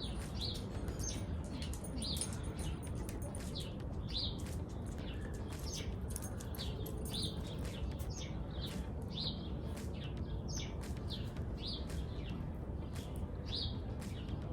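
A small bird chirping over and over, about one short high chirp a second, over a steady low background noise, with faint scattered clicks.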